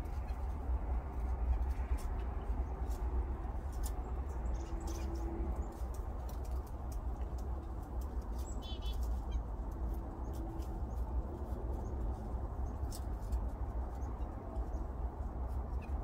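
Chipmunk feeding in a clear plastic window feeder: scattered small clicks and taps of seed being cracked and shuffled, over a steady low rumble. A brief, rapid high chirping call about nine seconds in.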